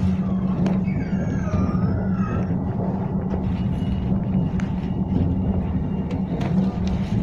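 Ride noise of a moving tram heard from inside the passenger cabin: a steady rumble with a low hum. About a second in, a brief wavering high-pitched tone sounds and fades, along with scattered faint ticks.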